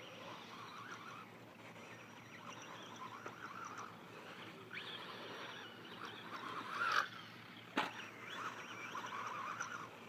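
Team Associated RC10B5 rear-motor electric buggy running on a dirt track: its brushless motor and tyres surge and ease with the throttle, with a faint high whine. The sound swells loudest about seven seconds in, followed by a single sharp knock just before eight seconds.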